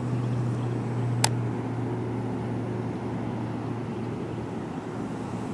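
A steady low mechanical hum under a haze of noise, with one sharp click about a second in.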